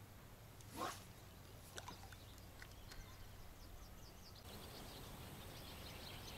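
Quiet lakeside ambience with a brief swish of the fishing rod swung through the air about a second in, followed by a few light clicks of the tackle. Birds chirp faintly in the second half.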